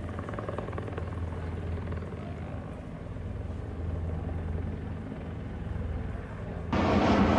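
Helicopter running steadily at a distance, a low continuous hum of rotor and engine. Near the end a much louder rush of noise cuts in suddenly.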